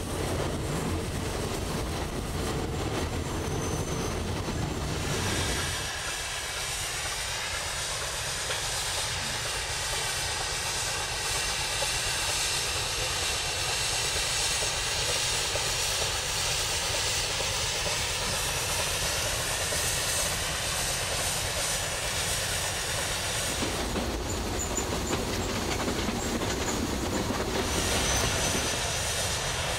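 Vintage Furka steam cogwheel train running along the track, heard from its carriages: steady rolling wheel-and-rail noise. The sound changes abruptly about five seconds in and again later on.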